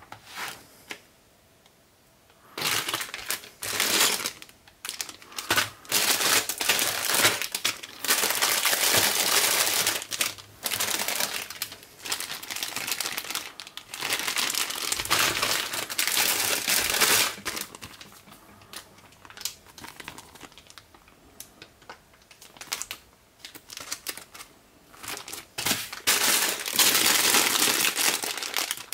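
Clear plastic bags of LEGO parts crinkling as hands handle and sort them. It starts about two and a half seconds in and comes in irregular bursts, some a second or two long.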